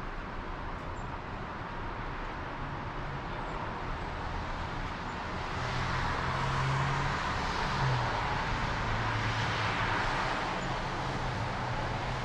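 Road traffic noise: a vehicle passes, its sound swelling from about five seconds in, peaking near eight to ten seconds, then fading, over a low steady engine hum.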